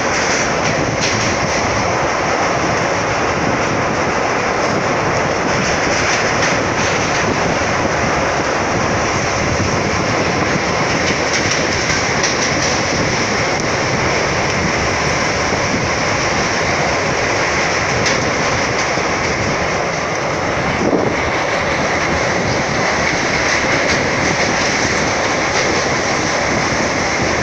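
Train running steadily on the rails, a loud even noise throughout, with a short dip and a brief knock about three-quarters of the way through.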